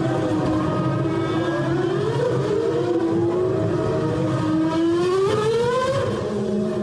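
Onboard sound of a McLaren Formula One car's engine accelerating hard, its high whine climbing in pitch and dropping back at each upshift, several times in the second half.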